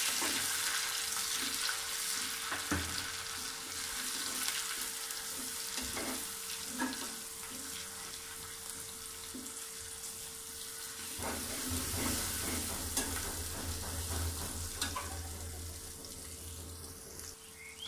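Onions, green chillies and red chilli paste sizzling in hot mustard oil in an aluminium pot, with a slotted metal spatula scraping and clicking against the pot as it stirs.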